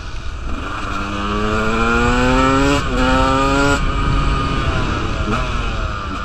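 KTM 125 dirt bike engine accelerating. Its pitch climbs, breaks briefly for a gear change near three seconds in, climbs again, then drops as the throttle closes about a second later. Wind rushes over the microphone throughout.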